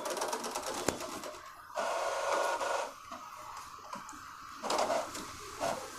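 Epson L6170 ink-tank printer starting a copy job: a sharp knock as its output tray is pulled out, then fast mechanical ticking and a steady motor whir for about a second. Quieter spells and short whirring bursts follow as the mechanism works before the page feeds.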